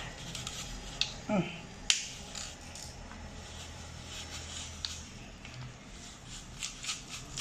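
Plastic apple slicer clicking and creaking in scattered sharp taps as an apple is pressed down onto its blades; the fruit barely goes through, the cutter working very hard. A short falling whine about a second in.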